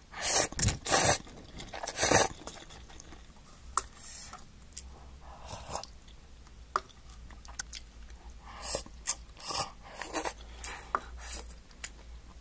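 A person slurping hot broth from a paper instant-noodle cup: a few loud sips at the start, then quieter swallows and mouth sounds, with another short run of sips near the end.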